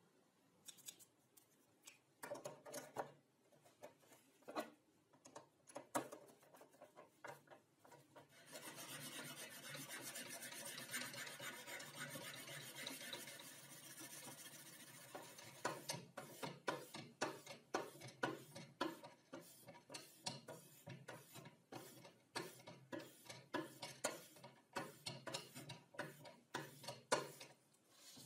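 A sharpening stone on a guide rod is rubbed along a scissor blade clamped in a homemade sharpening jig. After some scattered scrapes and knocks, there are a few seconds of continuous grinding, then quick repeated back-and-forth strokes.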